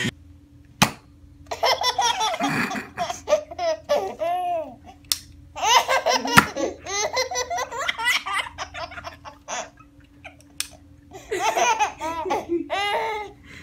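A baby laughing in repeated bursts of belly laughter, with a few sharp clicks in between.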